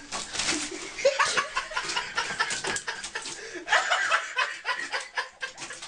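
People giggling and laughing on and off.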